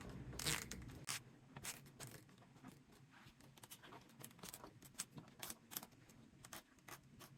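Faint, irregular clicks and scrapes of hands handling PC power cables and plastic cable ties.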